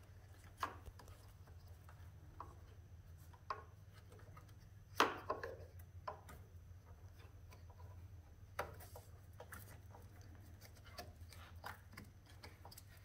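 Hands working a wiring harness connector through a motorcycle's plastic fairing bracket: scattered light clicks, knocks and rubbing of plastic and wire, with the sharpest knock about five seconds in.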